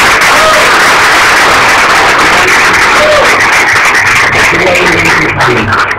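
Applause from a room full of people, a dense steady clapping that dies away about five seconds in.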